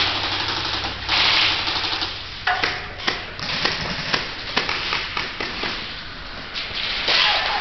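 Airsoft guns firing during close-quarters play: rapid sharp cracks and clicks of shots and BBs striking, mixed with scraping and rustling from the moving camera.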